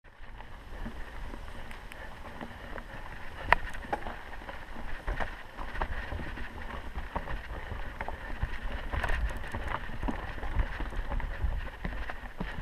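Mountain bike ridden along a forest dirt trail: a steady rumble of tyres rolling over dirt, leaf litter and roots, with scattered clicks and knocks and one sharp knock about three and a half seconds in.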